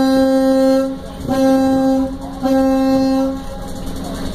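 Washington State Ferry's ship horn sounding a series of short blasts of about a second each, one steady deep tone, the last ending a little over three seconds in: the warning signal to a small boat heading into the ferry's path.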